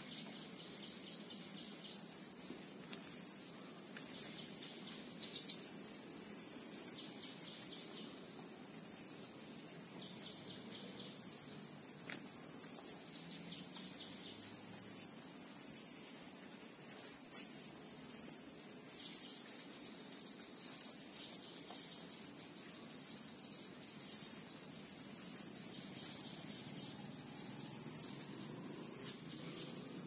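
Insects, crickets or the like, trill steadily in high-pitched tones, with a fainter pulsing chirp repeating beneath them. A bird gives four short, sharp, very high rising calls in the second half, louder than everything else.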